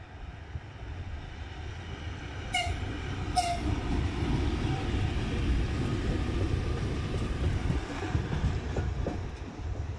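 A two-section electric locomotive passing close by. It gives two short horn toots about two and a half and three and a half seconds in, over a low rumble of wheels on rail that grows louder as it goes by and fades near the end.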